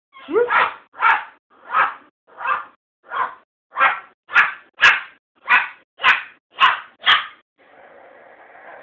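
A pet bird imitating a dog's bark, about a dozen short barks at a steady pace of roughly one every half-second, followed near the end by a quieter, drawn-out raspy sound.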